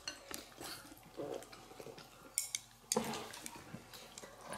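Quiet mealtime sounds: faint, scattered clinks of chopsticks against porcelain bowls, with a brief louder sound about three seconds in.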